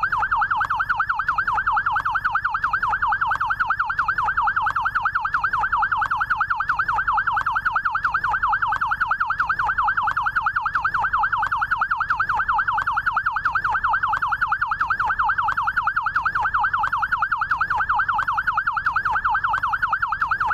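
Electronic siren of an ambulance rescue motorcycle in yelp mode: a fast warble sweeping up and down several times a second, loud and unbroken.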